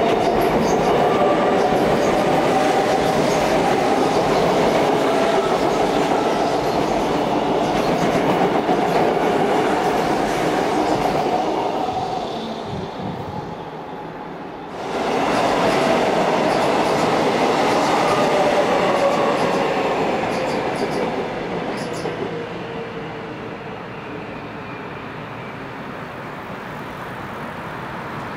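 Seoul Subway Line 2 electric train running past close by on the track, with a steady whining tone over the rumble of the wheels. The sound dies down about 13 seconds in, starts again abruptly and loud about 15 seconds in, and then fades, its whine falling in pitch.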